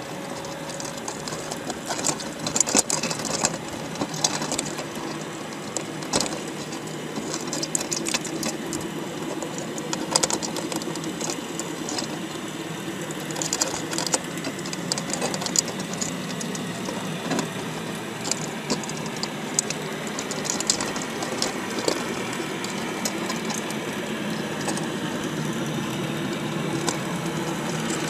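Underwater audio inside a crab trap: a steady low mechanical hum, with many irregular sharp clicks and scrapes of crab shells and claws knocking against the wire trap and the camera housing.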